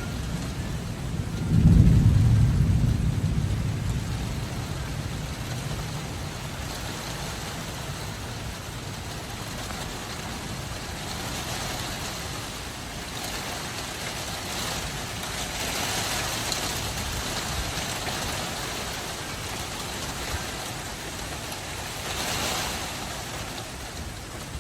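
Steady rain falling, with a loud low rumble of thunder about two seconds in that fades over a few seconds.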